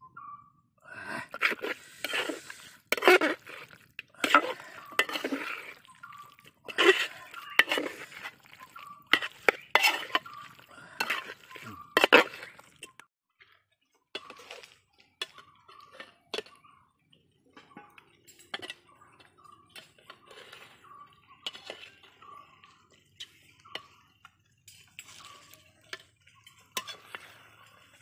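A steel ladle scraping and clanking against a metal cooking pot while chicken roast is scooped out: a run of sharp clinks for about twelve seconds, then only faint, scattered clicks.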